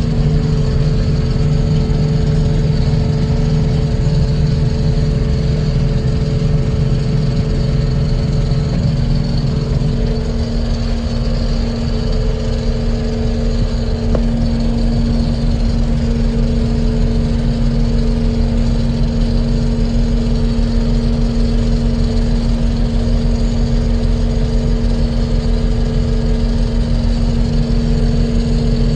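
Combine harvester running steadily while cutting soybeans: a constant engine and machinery drone with a steady hum. About ten seconds in, the lowest rumble drops away and the drone carries on.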